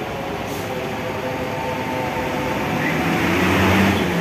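Diesel engine of a departing Rosalia Indah intercity bus running as it pulls away, growing louder toward the end.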